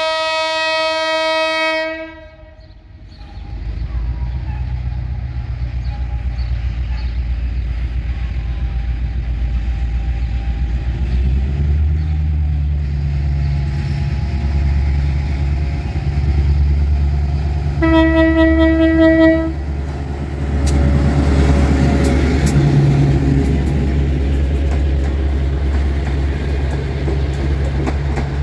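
EMD J16CW/AC diesel locomotive hauling a passenger train. Its horn sounds for about two seconds at the start, then the engine's low rumble grows as it approaches. A second horn blast of about a second and a half comes just past halfway, after which the locomotive passes close by and the coaches' wheels rumble and click over the rails.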